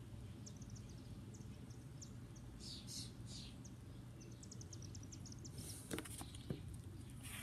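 Quiet outdoor background with faint, scattered bird chirps over a steady low hum, then the paper pages of a picture book being turned, rustling with a few sharp clicks about six seconds in.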